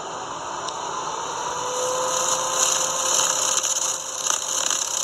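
TruTech TT9500 CNC centerless profile grinder running with its variable-speed centerless attachment turning: a steady mechanical whir, with a faint motor whine that comes in about one and a half seconds in.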